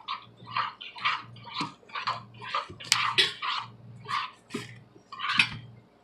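Glue-and-activator slime being stirred in a bowl, a run of short wet, sticky squelches about two a second.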